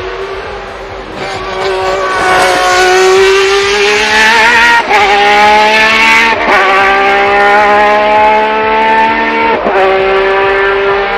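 Ferrari 333 SP's V12 engine at full throttle, heard onboard, climbing in pitch through the gears with quick upshifts about five, six and a half, and nearly ten seconds in.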